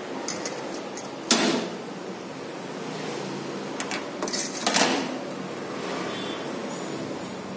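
Steady hum of a wall air conditioner, with a few brief rustling and clicking handling sounds as a comb and hands work through a dog's face hair: the loudest about a second and a half in, and a cluster around four to five seconds in.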